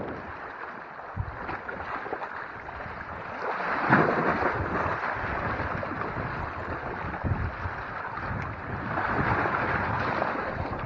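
Small waves washing and lapping against the shore rocks, with wind buffeting the microphone. The wash swells about four seconds in and again near the end.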